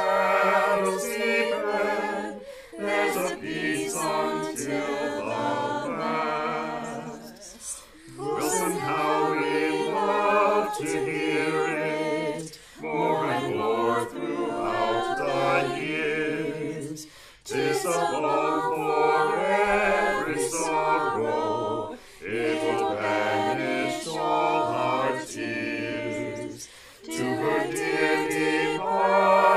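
A mixed group of men's and women's voices singing a college song a cappella in harmony: separately recorded voices mixed into one virtual choir. It is sung in phrases of about five seconds with brief breaths between them.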